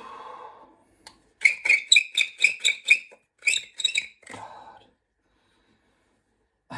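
Pipe reamer turning in a carbon-caked briar bowl, giving a quick run of about eight high squeaks, then three more.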